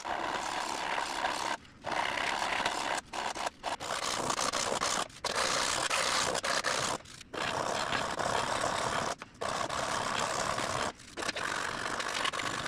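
Sandpaper on a small hand-held sanding block scraping back and forth over cured epoxy and phenolic microballoon filler, sanding the excess flush along a battery hatch seam. The scratchy rubbing is steady, with brief pauses every second or two as the block is lifted.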